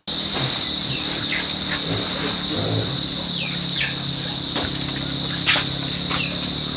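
Insects keeping up a steady high-pitched drone, with about five short falling bird chirps over it.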